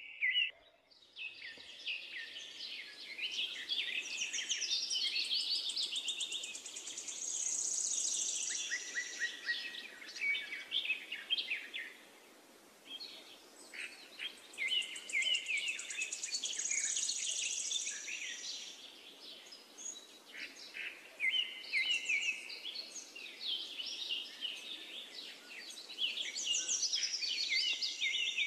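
A dense chorus of small birds chirping and trilling together, many overlapping calls at once, with a brief lull about halfway through.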